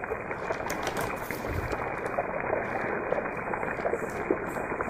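Soaked soya chunks deep-frying in hot oil in a kadai: steady sizzling with scattered small crackles and pops.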